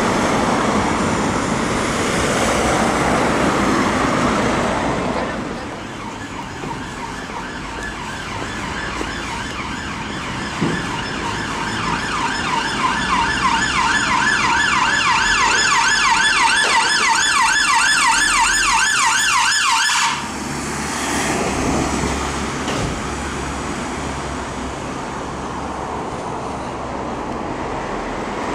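UK ambulance siren sounding a fast, repeating up-and-down sweep, coming in about eleven seconds in and cutting off suddenly about twenty seconds in. Street traffic noise runs underneath, loudest in the first few seconds.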